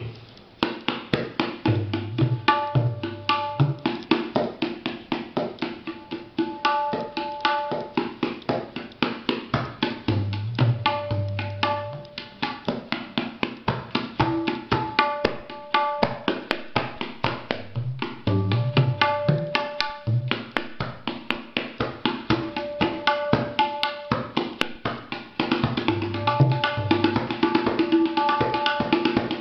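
Tabla played in a fast, even stream of strokes: an Ajrara gharana rela with its paltas (variations). Ringing strokes on the dayan run under recurring deep bass strokes on the bayan, in phrases that come round about every eight seconds. It gets louder near the end.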